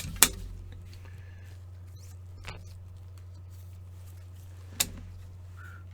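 A few sharp clicks and taps from a one-touch magnetic card holder being handled: two right at the start, one about halfway through and one near the end. A steady low hum runs underneath.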